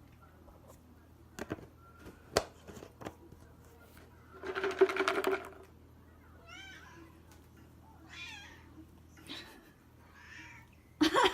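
Pet cats meowing repeatedly, begging for treats: a longer, louder call about four seconds in, then several short calls that rise and fall in pitch. A few sharp clicks come in the first three seconds.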